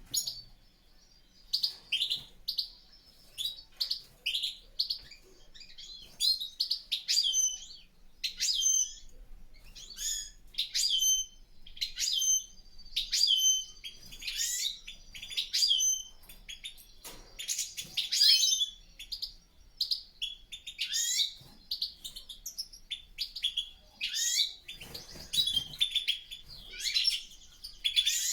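European goldfinches twittering and singing: a steady run of short, high, chirping phrases repeating every second or so.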